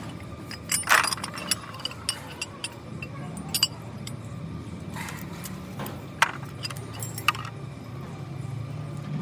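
Irregular metallic clinks and knocks of tools and metal parts being handled, the loudest about a second in, over a steady low hum.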